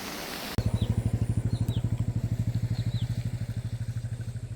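Motorcycle engine running with an even, fast low putter that starts abruptly about half a second in and slowly fades, after a brief rush of waterfall water. A few short chirping bird calls sound above it.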